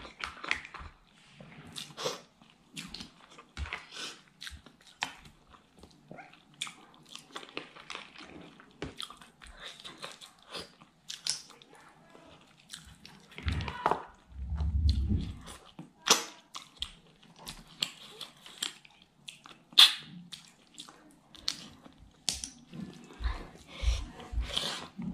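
Close-miked wet chewing, lip smacks and sucking of a person eating clams in curry and rice with the fingers, a quick run of short smacks and clicks. About halfway through, a low muffled sound lasts a second or two.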